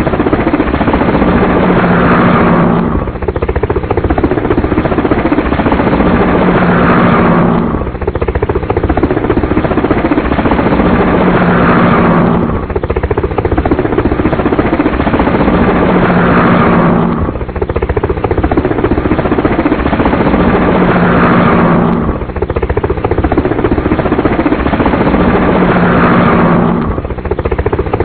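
Helicopter rotor and engine noise, a short recording looped over and over: it repeats about every five seconds with a brief dip between repeats.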